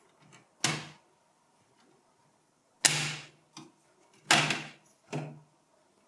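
Plastic front bezel of an HP ProDesk 600 G2 small-form-factor PC being pulled off the metal chassis: its retaining clips come loose in about five sharp snaps spread over several seconds, each dying away quickly.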